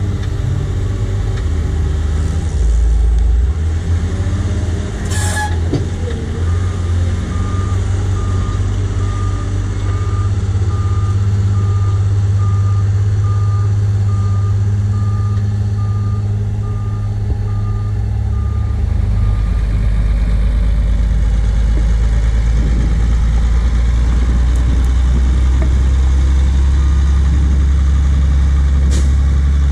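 Heavy diesel of a JCB 436ZX wheel loader (Perkins 1006.6T turbocharged six-cylinder) working under load. There is a sharp knock about five seconds in, then a reversing alarm beeps steadily for about thirteen seconds. About two-thirds of the way through, the engine sound drops to a lower, steady drone that holds to the end.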